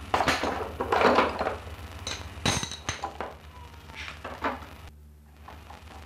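Hand tools knocking, scraping and clinking on a luthier's workbench, with one short ringing metallic clink about two and a half seconds in. A low steady hum runs underneath.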